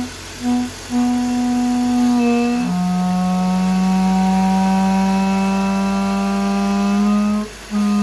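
Loud honking tone from the oil filler cap of a running BMW engine as the cap is lifted on its seat and air is sucked in past it: crankcase vacuum, the sign of a clogged PCV valve. A few short honks, then one long held tone that drops in pitch about two and a half seconds in and breaks off briefly near the end.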